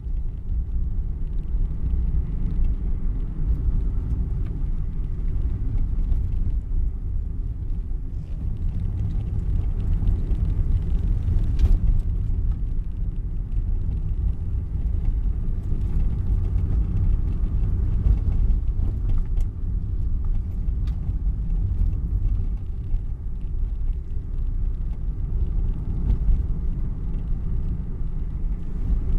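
Car heard from inside the cabin while driving: a steady low rumble of engine and tyre noise, with a few light knocks, the clearest a little before halfway through.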